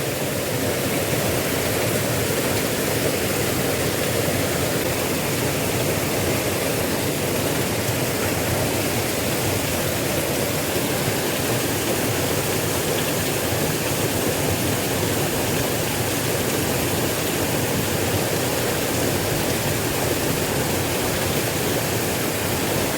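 Steady rushing of a small river's water.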